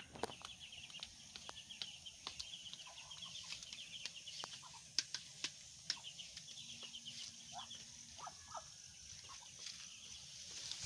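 Ducklings peeping in quick runs of short, high notes, with a few lower calls a little past the middle and scattered sharp clicks.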